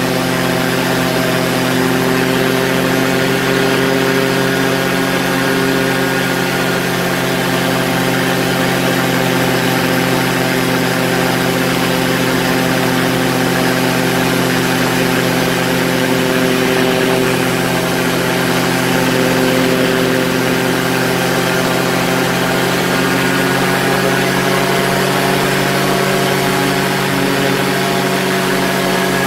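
Quicksilver ultralight's engine and pusher propeller running steadily at cruise in flight, over a steady hiss of rushing air.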